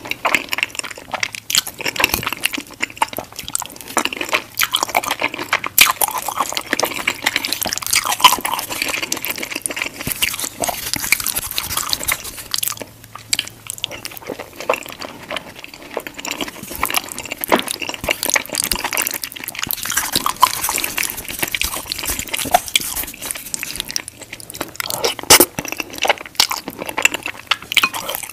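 Close-miked wet chewing of creamy white-sauce pasta with shrimp: sticky, clicking mouth sounds, with a short lull about halfway through.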